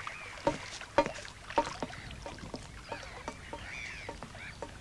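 Footsteps at a steady walking pace, about two steps a second, with a few short bird calls in the background.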